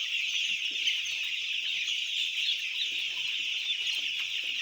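A large flock of brooding chicks peeping all at once, a dense, steady high-pitched chorus.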